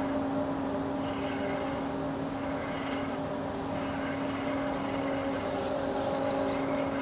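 Small boat outboard motor running with an even hum.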